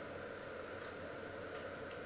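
Water splashed from a glass onto a hot stainless-steel pot lid, sizzling faintly with a few soft ticks over a steady hiss from the cooking.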